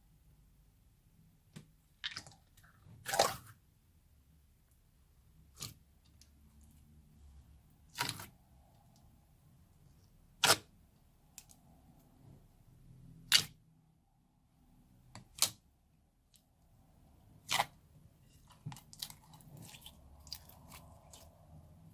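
Homemade clear slime being squeezed and pulled: sharp wet pops or snaps every two to three seconds, seven in all, then a run of small crackles near the end.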